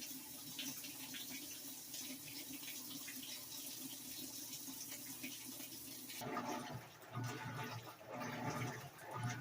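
Washing machine drum filling with water from its inlet: a steady hiss of running water. About six seconds in it cuts off suddenly and a different, uneven sound with wavering pitched tones takes over.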